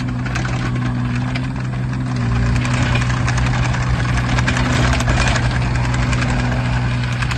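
Kubota KX016-4 mini excavator's three-cylinder diesel engine running steadily as the machine drives on its rubber tracks across concrete, with track and undercarriage clatter that grows louder about two seconds in.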